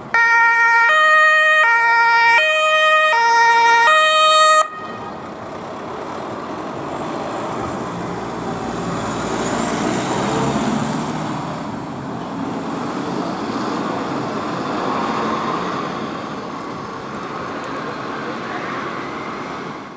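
German two-tone fire brigade siren (Martinshorn) on a Mercedes-Benz Sprinter fire van, alternating between a low and a high note about every 0.7 s. It sounds loudly for about four and a half seconds and then cuts off suddenly. After that comes a steady outdoor rumble as the van drives away.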